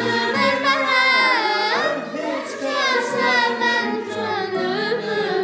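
Children singing an Azerbaijani təsnif in the dəşti mugham mode, the melody held in long lines with wavering, ornamented turns.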